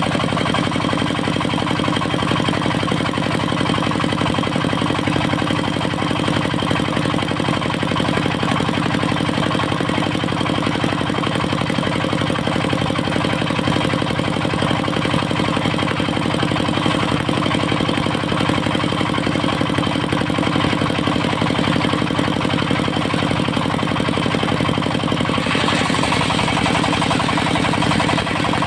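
Engine of a mobile circular sawmill running steadily at a constant speed. Near the end a brighter, hissier sound joins in over the engine.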